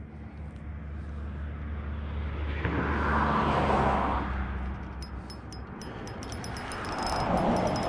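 Traffic crossing the road bridge overhead: a low rumble and two vehicle passes that swell and fade, the first peaking midway and the second near the end. From a little past midway, a fast light ticking comes with it, in step with the spinning reel being wound.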